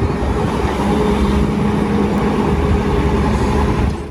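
Loud engine noise of heavy machinery running, with a steady hum joining for about two seconds in the middle; it cuts off suddenly at the end.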